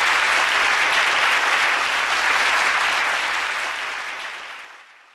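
Theatre audience applauding at the close of a performance, steady at first, then dying away over the last couple of seconds.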